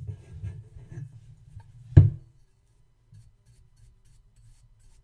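Bristle brush swept over a silver-plated metal creamer, soft scratchy rustling with handling noise, and a single sharp knock about two seconds in.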